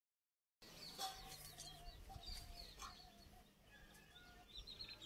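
After a moment of dead silence, faint bird calls: a hen clucking with a few short repeated notes, and small birds chirping.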